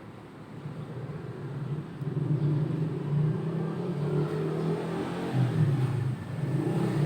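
A motor vehicle engine running, getting louder about two seconds in.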